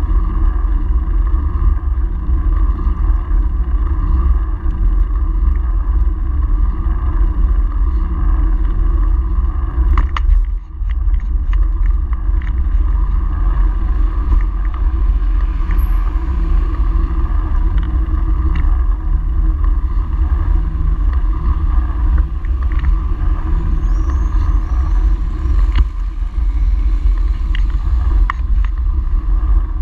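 Wind buffeting and road rumble on the microphone of a handlebar-mounted camera on a moving bicycle, steady throughout, with a few short knocks from bumps in the road surface.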